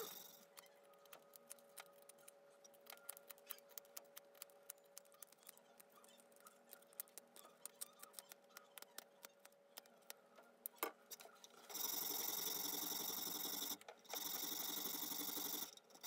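Light clicks and taps of small black cherry wood pieces being handled for about eleven seconds. Then comes a steady rasping hiss as a wooden part is rubbed back and forth on an abrasive block, in two long strokes of about two seconds each with short pauses between them.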